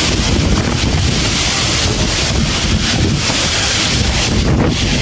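Wind buffeting the microphone over a steady, loud rushing noise.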